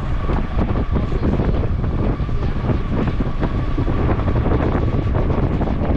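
Wind buffeting the microphone: a loud, ragged low rumble with constant fluttering gusts.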